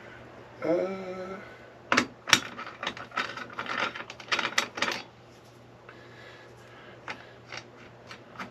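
Metal hand tools clinking and clattering: sockets knocking together as they are picked through and tried for size on the blade nut. A quick run of clicks and knocks from about two to five seconds in, then a few light taps near the end.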